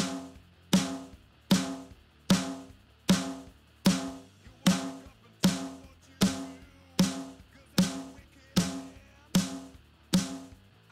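Recorded snare drum hit steadily about once every three-quarters of a second, each stroke sharp with a short ringing tone. It plays through a tube-emulation multiband compressor plugin whose middle-band compression is being turned up for more snap.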